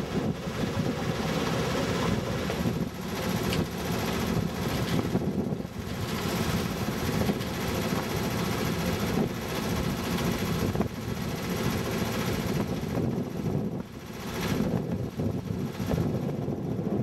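Inboard engine of a 1982 Pearson 323 sailboat running steadily as the boat motors along under power, a continuous low engine noise with a few brief small dips in level.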